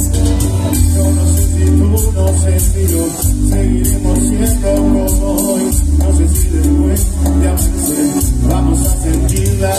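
Live tropical cumbia band playing a song, a steady dance beat with heavy pulsing bass.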